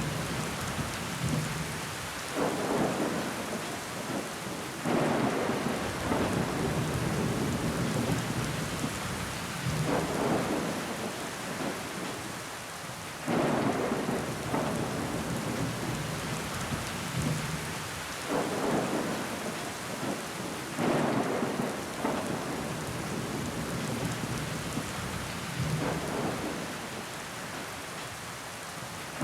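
Steady rain falling against window glass, with louder swells that come in every few seconds.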